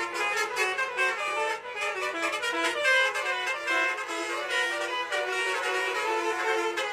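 Basuri musical horn on an Indonesian tour bus playing a melody: a continuous run of steady tones stepping up and down in pitch.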